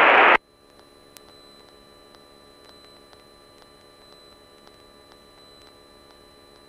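Cabin noise on the aircraft's headset audio cuts off abruptly just after the start. What is left is a faint steady electrical hum with soft ticks about twice a second.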